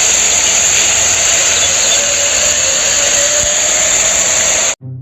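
Loud, steady rushing noise with a strong high hiss, cutting off abruptly near the end.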